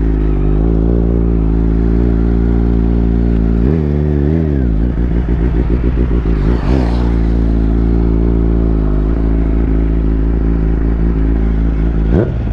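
Kawasaki Z800 inline-four engine running under way, its note mostly steady. The pitch rises and falls briefly about four seconds in, dips and picks up again about halfway through, and climbs sharply with a quick rev near the end.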